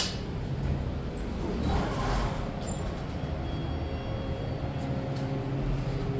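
Steady rumble of road traffic, swelling briefly about two seconds in.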